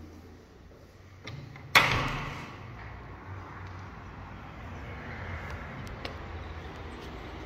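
Glazed balcony door unlatched and pulled open: a small click of the handle, then a loud sharp clack about two seconds in. A steady outdoor hiss follows once the door is open.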